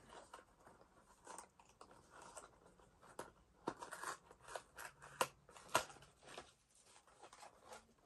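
A handmade paper treat box being worked open by hand: faint rustling and crinkling of paper and card with several sharp clicks and snaps, as a package that may have been glued shut is pried loose.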